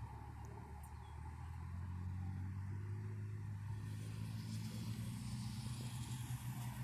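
Motor traffic passing close by on a highway: a large vehicle's low engine hum builds over the first couple of seconds and then holds steady, with a faint rising whine in the second half.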